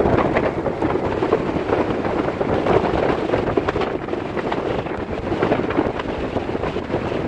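Wind buffeting the microphone on the open deck of a ferry under way: a rough, steady rushing that swells and eases.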